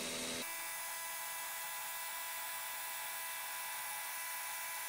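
DeWalt Atomic DCH172B 20 V brushless SDS hammer drill boring a 5/8-inch hole into a concrete block, heard as a steady, high whine.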